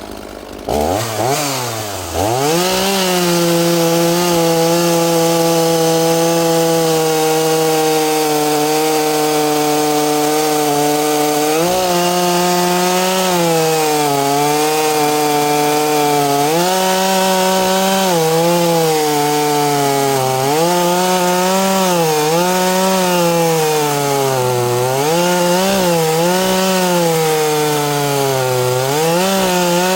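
Small two-stroke chainsaw revving up to full throttle about a second in, then cutting through a knotty, twisty-grained black oak log. Its engine pitch repeatedly sags under load in the cut and picks back up.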